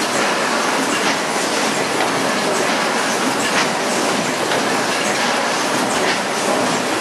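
Steady mechanical clatter of a running automatic production line for 18-litre square tinplate cans, a dense even din with irregular sharp clacks.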